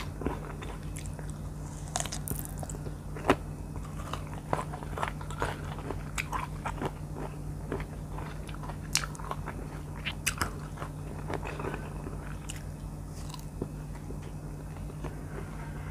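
Biting and chewing firm slices of R2E2 mango: irregular crisp crunches with chewing between them, the sharpest bite about three seconds in, over a steady low hum.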